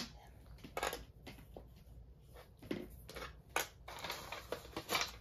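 Hands handling folded cardstock and small metal paper clamps: scattered rustles, taps and clicks, a few sharper than the rest.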